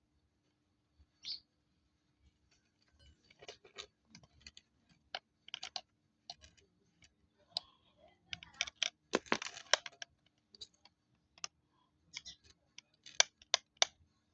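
Irregular clicks, taps and rattles of hands working on an angle grinder while it is switched off, with a cluster of louder clicks about two-thirds of the way through.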